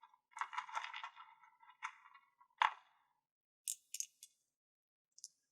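Small crystals rattling and clinking together, with a run of sharp taps and one louder click about two and a half seconds in, then a few brief faint high clinks near the end.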